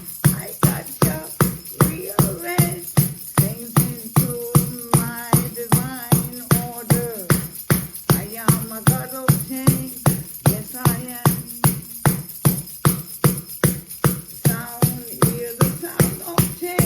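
Music with a steady beat of about two and a half hits a second and a melody over it.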